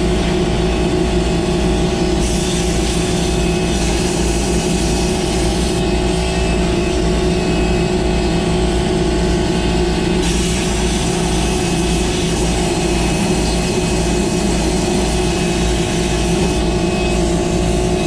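Kubota compact track loader's diesel engine running steadily, a continuous engine drone with an airy hiss on top that grows brighter and then falls back a few times.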